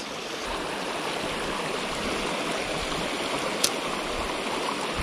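Shallow mountain creek rushing over rocks and fallen logs in a riffle: steady water noise. A single sharp click about three and a half seconds in.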